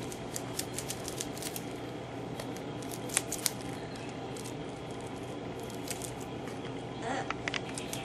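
Budgerigar pecking and nibbling at a woven palm-leaf bird toy: irregular small clicks and crackles, two sharper ones a little after three seconds, over a faint steady hum.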